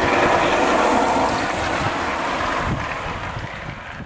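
Scania R500 truck's V8 diesel engine running as the truck drives along, its sound slowly falling away and fading out near the end.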